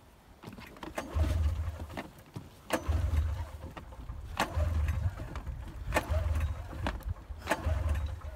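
Arctic Cat snowmobile being pull-started: the recoil cord is yanked about five times, roughly every second and a half, each pull giving a sharp click and a brief low churn of the engine turning over. The engine does not catch, failing to start after the crash.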